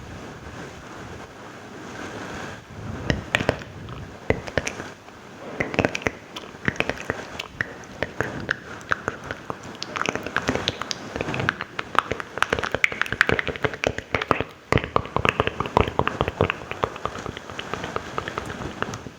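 ASMR mouth sounds: dense, irregular wet clicks and smacks of the lips and tongue, starting about three seconds in after a soft hiss.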